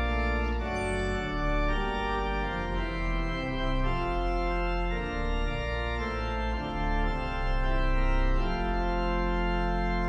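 Pipe organ playing a slow hymn tune in sustained full chords over a deep pedal bass, the chords changing every second or so.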